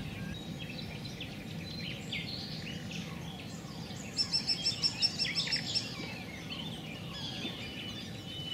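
Birds singing and calling, with a loud rapid run of about a dozen high chirps midway, over a steady low outdoor background noise.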